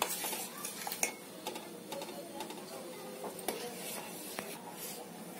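Metal spoon stirring sago pearls in milk in a stainless steel pot, with scattered clinks of the spoon against the pot.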